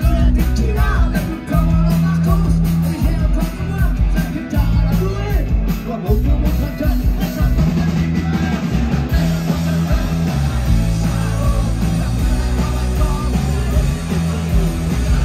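Live punk rock band playing loud, with distorted electric guitars, bass and drums and a singer's voice over them.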